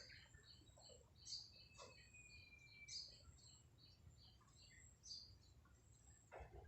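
Faint, scattered high chirps of small birds, with one thin whistle gliding slightly downward about two seconds in.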